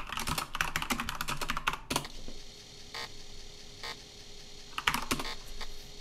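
Typing on a computer keyboard: a quick run of key clicks for about two seconds, then a few single key presses spaced out. A faint steady hum comes in about two seconds in.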